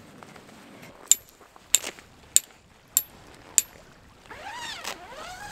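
A metal tent stake being struck into gravel: five sharp metallic clinks, evenly spaced about half a second apart, then a softer sweeping sound near the end.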